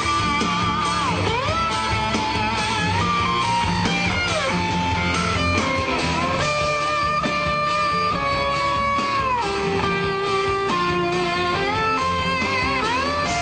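Pedal steel guitar playing sustained notes that slide up and down over a country-rock band backing of guitars.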